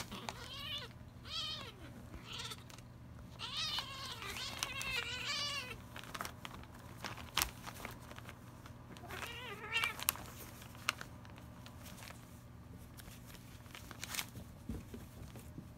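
Young feral kittens yowling while they play-fight rough, several drawn-out wavering calls in the first ten seconds. Between and after the calls come a few sharp knocks and scuffles from the wrestling.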